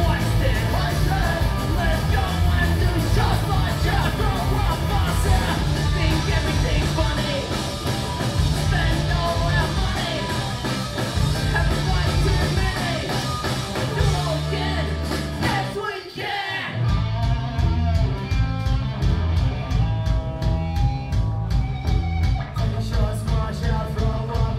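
Punk rock band playing live: electric guitars, bass and drums with sung vocals. About sixteen seconds in the band briefly drops out, then comes back in at full volume.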